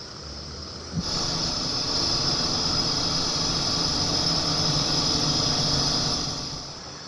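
Deterrent noise played from a business's outdoor loudspeakers to drive off people sleeping nearby: a loud, dense, steady noise with a strong high hiss. It starts suddenly about a second in and fades out near the end.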